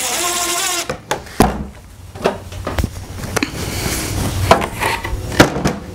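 Cordless drill running as it drives a screw into the wooden hive body, its motor whine stopping about a second in. Then a series of separate knocks and clatters as the tools are handled and set down.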